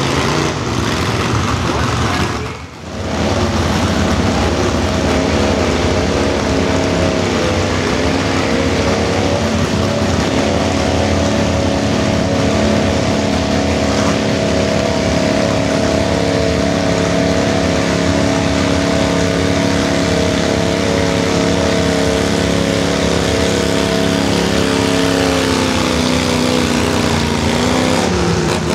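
Stock V-twin pulling tractor engine running hard at high, steady revs under load. Its pitch falls off near the end as it slows. The sound dips briefly about three seconds in.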